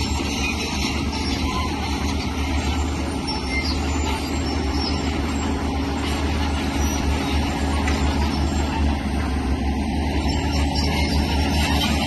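Diesel engine of heavy earthmoving machinery running steadily with a deep low drone, slightly louder in the second half.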